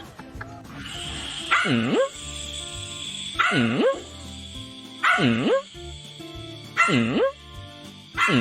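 A dog vocalising in five evenly spaced calls about a second and a half apart, each dipping low and rising again in pitch, over background music.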